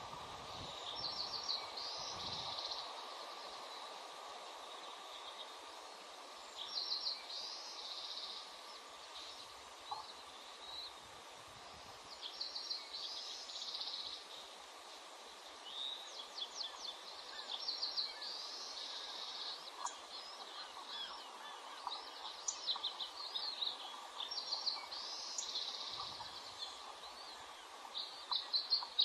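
A bird singing a short, high, trilled phrase that repeats about every five or six seconds, over a steady background hiss.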